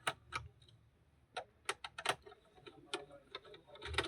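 Irregular light clicks and taps of a screwdriver working screws out of the back of an all-in-one PC, about eight sharp clicks at uneven intervals.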